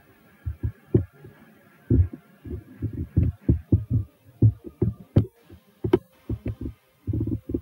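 A run of irregular, muffled low thumps, several a second, with a couple of sharper clicks partway through.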